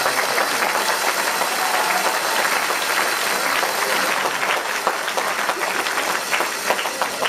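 Crowd applauding after a point in a badminton match: dense, steady clapping.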